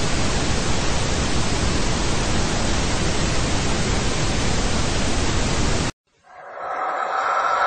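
Steady static hiss, like an untuned TV, that cuts off suddenly about six seconds in. After a brief silence, a fainter sound holding a few steady tones swells up near the end.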